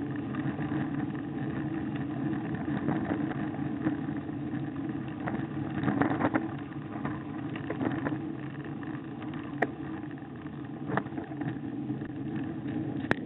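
Bicycle riding over a rough, patched lane, heard from a handlebar-mounted camera: steady wind and tyre noise, with sharp knocks and rattles as the bike jolts over bumps, several of them between about five and eleven seconds in.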